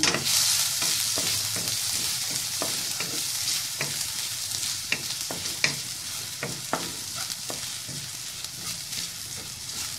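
Minced garlic sizzling in hot cooking oil in a metal wok as it is sautéed toward golden brown, the sizzle loudest at first and easing a little. A wooden spatula stirs it, with irregular taps and scrapes against the pan.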